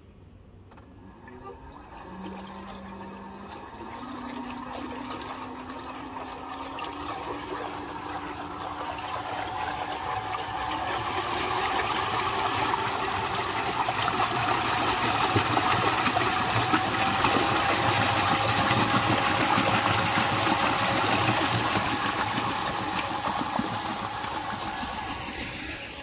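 Electric squid-spinning machine starting up: its motor hum begins about two seconds in and climbs in pitch in steps as it speeds up, while the paddle churns the tank water into a swirl whose rushing splash grows steadily louder, then eases off near the end.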